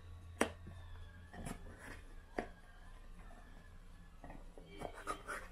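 Faint scraping and a few sharp clicks as a silicone spatula scrapes sweetened condensed milk out of a carton into a bowl, with a cluster of clicks near the end, over a faint low hum.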